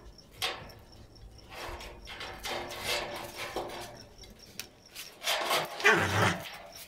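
A chained dog scrabbling and scratching at a wooden board, making irregular rubbing and scraping sounds, with a louder burst about five to six seconds in.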